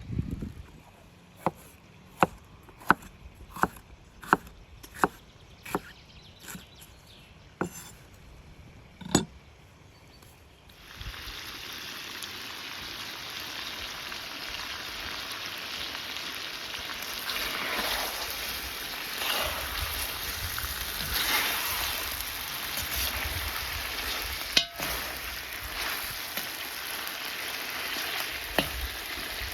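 A knife chopping on a cutting board, about ten separate strokes. Then, about eleven seconds in, a steady sizzle starts suddenly as food fries in a hot cauldron, with two sharp knocks near the end.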